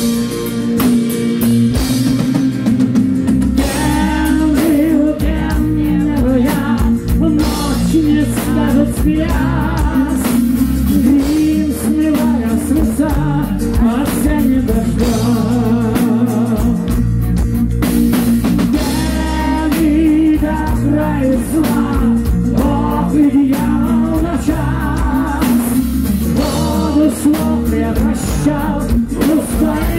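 Heavy metal band playing live: distorted electric guitars, bass guitar and drum kit, with a male lead vocal coming in a few seconds in and carrying on.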